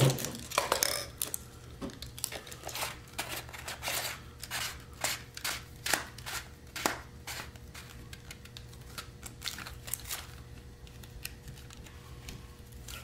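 Hands handling a cheap plastic flashlight, pulling off its end cap and fitting its parts: a string of small clicks, taps and scrapes, most of them in the first half.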